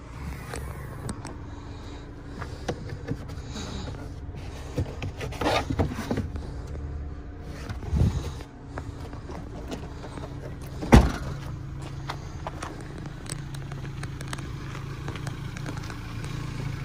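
Handling sounds around a Ford Focus hatchback: rustles and light knocks over a steady low hum, with one loud thump about eleven seconds in.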